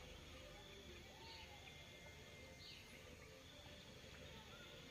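Near silence: faint rural outdoor ambience with two soft high bird chirps about a second and a half apart.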